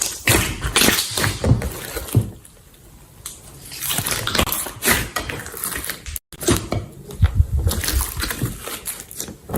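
Hands squishing and stretching slime, making irregular wet squelches and crackling pops, with a quieter pause about two and a half seconds in.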